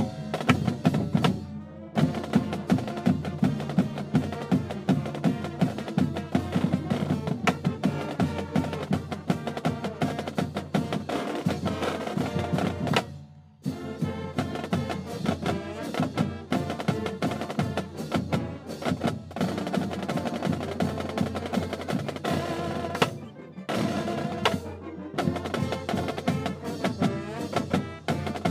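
Student brass pep band playing an up-tempo tune with sousaphones, saxophones, trumpets and drums over a steady drum beat. The music stops for a moment a little after halfway through, then starts again.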